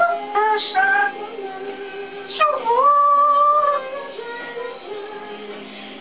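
African grey parrot singing a wordless, song-like melody: a few short notes, then about two and a half seconds in a sharp upward swoop into a long held note.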